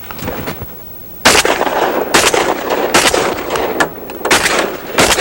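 Shotguns firing at incoming ducks: a string of about five shots in quick succession, starting about a second in, each trailing off in an echo.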